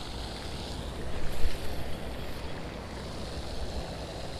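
Wind buffeting the microphone outdoors, a steady low rumble that swells for a moment a little over a second in.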